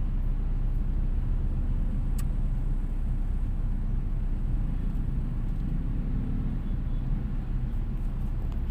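Steady low rumble of vehicle engines idling and creeping in a dense traffic jam, with one faint click about two seconds in.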